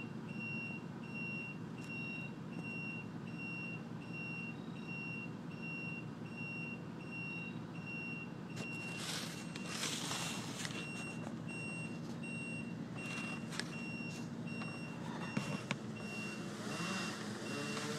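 Truck's backup alarm beeping steadily, about two single-tone beeps a second, over the engine running, heard from inside the cab. A few short rushes of noise break in about halfway through.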